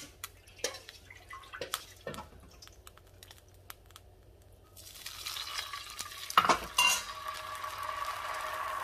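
Light clinks and taps of utensils against a nonstick frying pan. About five seconds in, bánh cuốn rice-flour batter poured into the hot pan starts a steady hiss and sizzle, with two loud knocks as the pan and utensils are handled.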